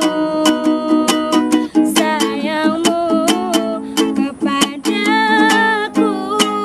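Ukulele strummed in a steady rhythm, accompanying a woman singing.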